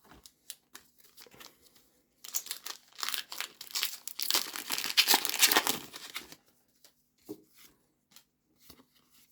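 Foil wrapper of a Pokémon TCG booster pack being torn open and crinkled in the hands, a dense run of tearing and crinkling from about two seconds in to about six and a half seconds. Light scattered ticks of handling come before and after it.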